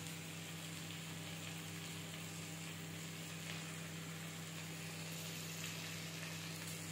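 Bitter gourd, potato and onion pieces frying in oil in a kadhai, a faint steady sizzle left unstirred, with a steady low hum underneath.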